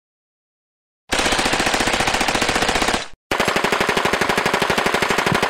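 Automatic gunfire: two long bursts of rapid shots, about ten a second, the first starting about a second in and the second following a brief pause a couple of seconds later.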